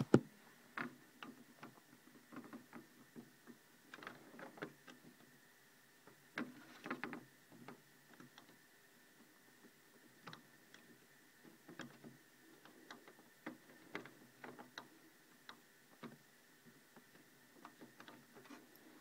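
Faint, irregular clicks and taps of hands working a plastic CD drawer and its release tab with a small screwdriver.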